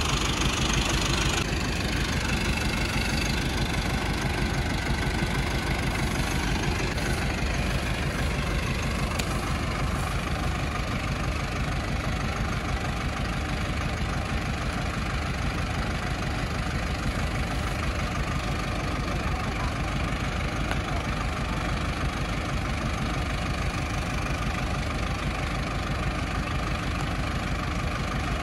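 An engine running steadily at an even pace, with a brighter hissing noise over it for the first second or so.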